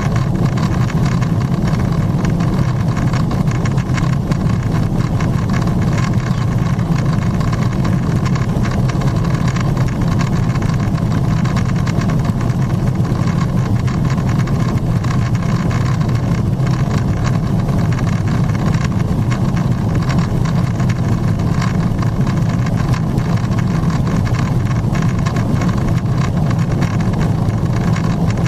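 Steady cabin noise of a Boeing 777-300ER climbing at cruise-like speed, heard inside the cabin by the window: a deep, even roar from its GE90 turbofans and the air rushing past the fuselage.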